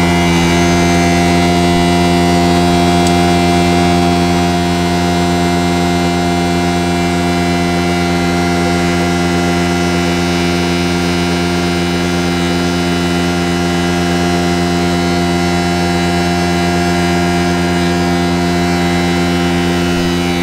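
Vacuum pump truck's engine and PTO-driven vacuum pump running at a steady, loud drone, ready to suck out a portable toilet tank.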